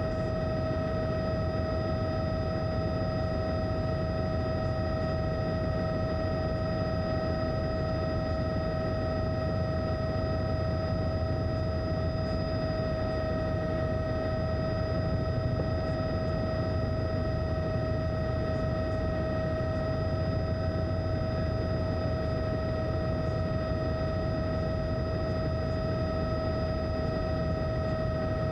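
Aircraft noise heard from aboard, most likely a helicopter: a steady low rumble with several steady high whining tones over it, without change.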